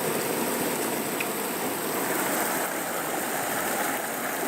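Mountain stream water flowing steadily, a constant rushing.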